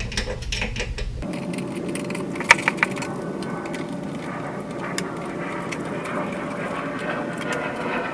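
Metal hand tools clicking and clinking on the carburetor mounting nuts, a few sharp clicks with the loudest cluster about two and a half seconds in, over a steady hiss that replaces a low hum about a second in.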